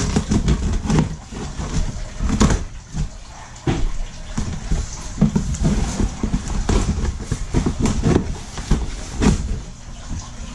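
A knife cuts the packing tape on a cardboard shipping box while the box is handled and shifted, giving irregular scrapes and knocks against the cardboard.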